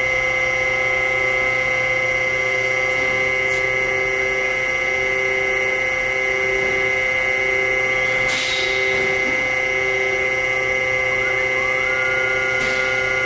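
Harig EZ Surf II CNC surface grinder running with its axes moving: a steady machine hum with several constant whining tones and a lower tone that comes and goes in short pulses. Three brief hisses break in, the clearest about eight seconds in.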